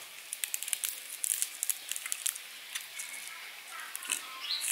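Food frying in hot oil in a pan: irregular sharp crackles and pops, several a second, over a faint sizzle.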